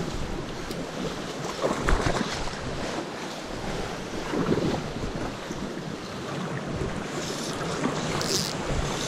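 Steady rush of a small rocky trout stream's flowing water, with some wind on the microphone and a brief knock about two seconds in.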